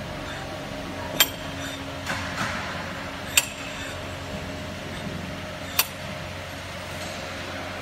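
Three sharp metallic clinks about two seconds apart, each with a brief ring: steel roll-forming machine shafts knocking against one another as they are handled, over a steady workshop hum.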